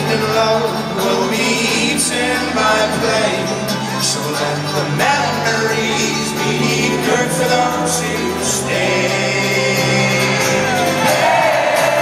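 Live folk-rock band playing a song with sung vocals and accordion among the instruments, amplified in a large arena hall.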